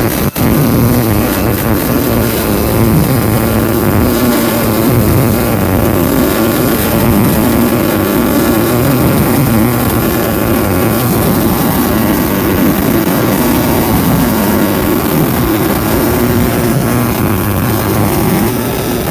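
MIG welding arc crackling and hissing steadily as a fillet bead is run along a T-joint in 3/16-inch steel plate, with one brief break in the arc just after the start.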